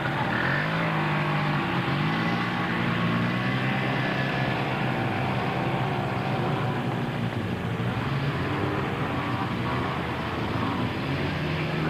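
Quad (ATV) engines running, their pitch rising and falling over and over as the riders throttle up and ease off.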